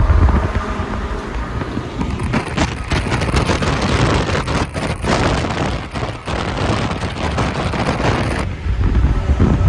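Car engine rumbling with wind buffeting the microphone. From about two seconds in until near the end, a louder harsh noise covers everything, then drops back to the engine rumble.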